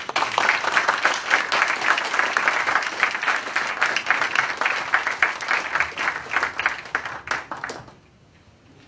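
Audience applauding, with a dense patter of many hands clapping that breaks out suddenly and dies away about eight seconds in.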